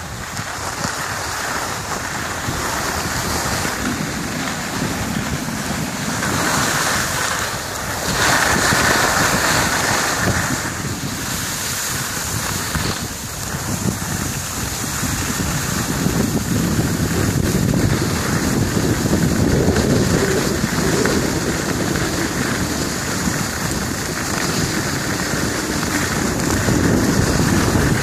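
Continuous rushing noise of skiing downhill: wind buffeting the phone's microphone, mixed with skis sliding and scraping over packed snow. It swells and eases through the run.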